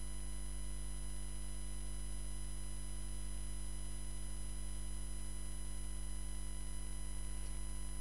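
Steady electrical hum with many evenly spaced overtones and nothing else heard: mains hum in the audio.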